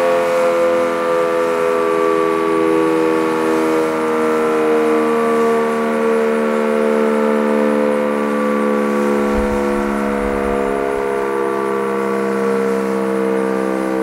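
Sentry 15V1T outdoor warning siren sounding a steady, unbroken tone at full speed: the Alert signal of a tornado siren test, with the siren running healthy.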